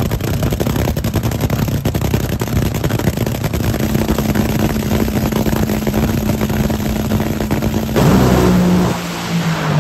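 Rail dragster's engine running on the starting line with rapid, uneven firing pulses, settling to a steady held pitch a few seconds in. Near the end it goes suddenly louder at launch, then falls away quickly as the car pulls off down the track.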